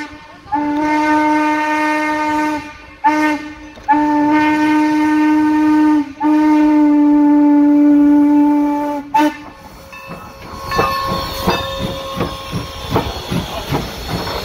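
Steam whistle of Norfolk & Western 4-8-0 No. 475 blowing the grade-crossing signal, long, long, short, long, with a brief extra toot at the end. Then, as the locomotive passes close by, steam hisses over a rapid run of knocks.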